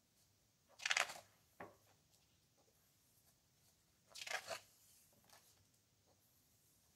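Pages of a hardcover photobook printed on heavy coated paper being turned by hand, twice: a quick papery swish about a second in, with a light tap just after it, and another swish about four seconds in.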